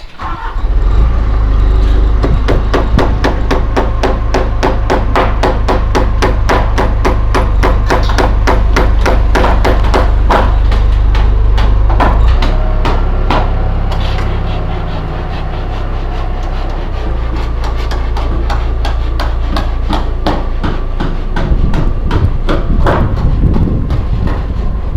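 Rapid, regular hammering, about four strikes a second, over a steady low engine drone.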